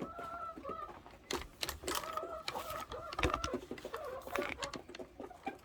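Domestic hens calling in the coop: two drawn-out, level calls, one at the start and one in the middle, with clucks and scattered sharp clicks and knocks between them.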